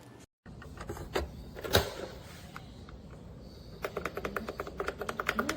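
Scattered clicks and one sharp knock, then a rapid, even run of clicking from about four seconds in.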